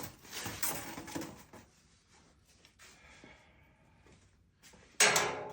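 Cardboard box and packaging being handled: rustling and scraping for about the first second and a half, then quieter, then a sudden loud scrape near the end.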